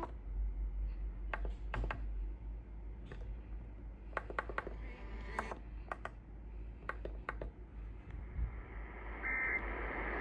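Faint radio receiver hiss with scattered sharp clicks. About nine seconds in, a short burst of Emergency Alert System SAME data tones sounds: the brief two-tone digital screech of the alert coding.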